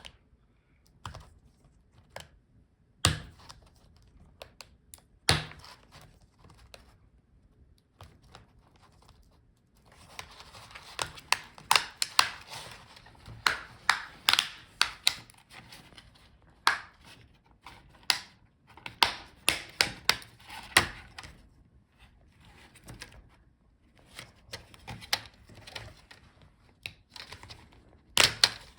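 Plastic snap clips of a laptop's LCD front bezel being pried loose by hand: a string of sharp clicks and snaps, scattered at first, then coming thick and fast over plastic scraping and rustling from about a third of the way in.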